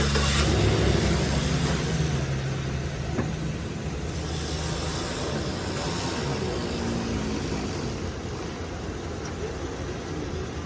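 Chevrolet Silverado 2500 HD pickup engine idling steadily, louder for the first couple of seconds, then settling, with a single light click about three seconds in.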